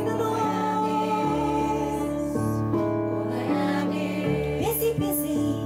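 A woman singing a slow musical-theatre ballad with electric piano accompaniment, the keyboard holding chords that change about once a second.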